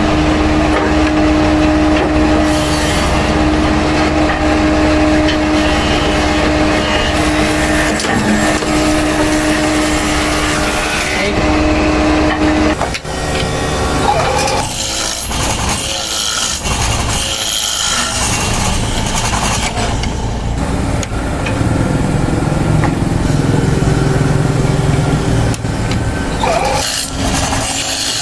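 Steady running machinery with a humming tone that cuts off about halfway through, followed by continuing mechanical noise.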